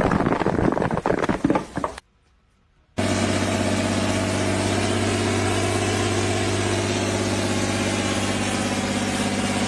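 An engine running steadily at idle with a constant, even-pitched hum, starting about three seconds in after a brief silence. Before the silence there is a dense, noisy stretch of sound.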